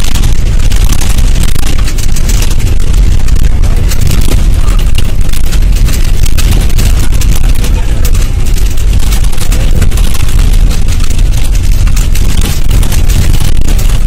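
Bus driving along a rough road, heard from inside the cabin: a loud, steady rumble of engine and road noise.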